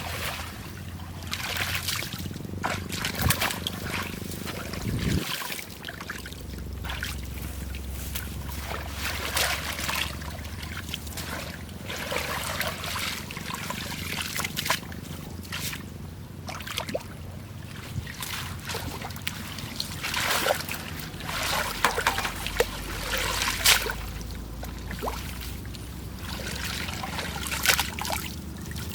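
Lake water splashing and sloshing in irregular bursts, with trickling and dripping between them, as the water is stirred and worked by hand.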